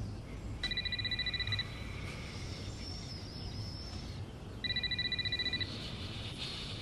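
Telephone ringing: two trilling rings, each about a second long, about four seconds apart.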